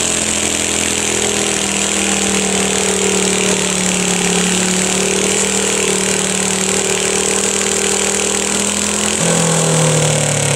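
Small modified garden tractor's engine running hard at high revs while pulling a weight sled, holding a steady pitch, then dropping to a lower pitch about nine seconds in.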